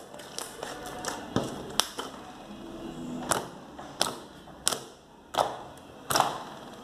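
Clear-base slime with EVA foam clay and glitter being squeezed and pressed by hand, giving about nine sharp clicks and pops of trapped air at irregular intervals.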